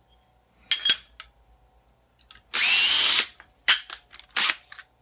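Cordless drill spinning up with a rising whine and running for under a second to bore out a small hole in metal, with a shorter blip about a second in. A few sharp clicks and knocks follow near the end.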